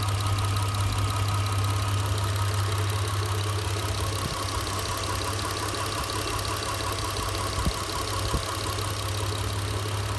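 Mitsubishi Pajero IV's 6G72 3.0 V6 engine running steadily with a fast ticking knock over the hum; the knock is the unidentified fault the owner is trying to trace. Two louder clicks come about three quarters of the way through.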